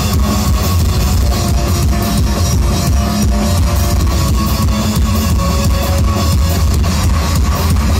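Live rock band playing loud: electric guitars over a drum kit, with regular drum hits throughout.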